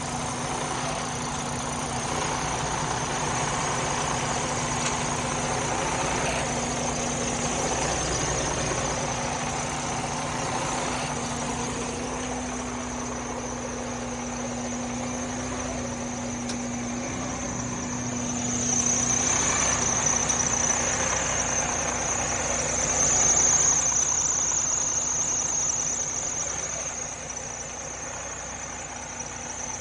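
Freightliner Cascadia's diesel engine idling, with a steady high-pitched whine over it. It swells louder for a few seconds about two-thirds of the way through.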